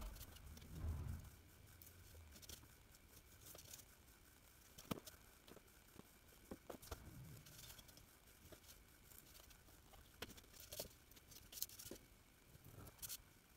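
Faint handling sounds of foam board sheets and metal rulers being moved and set down on a cutting mat: scattered light taps and clicks, a couple of soft thumps, and short scratchy passages like a pen drawn along a ruler.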